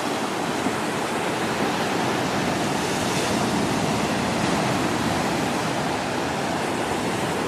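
Sea surf washing onto a black volcanic sand beach: a steady rushing wash of waves with no distinct breaks.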